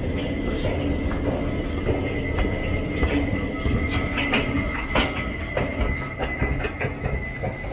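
Amsterdam metro train running on its rails: a steady low rumble with a thin, steady high whine and frequent sharp clicks and knocks from the wheels. The sound eases off toward the end.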